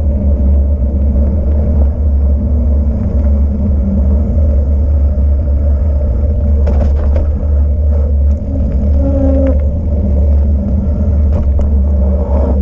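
Steady, heavy low rumble of wind and road noise on a camera riding on a moving vehicle. A few brief clicks come about seven and eleven seconds in.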